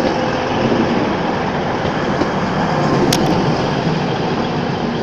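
Double Class 185 diesel multiple unit standing at the platform with its diesel engines running steadily, and one short click about three seconds in.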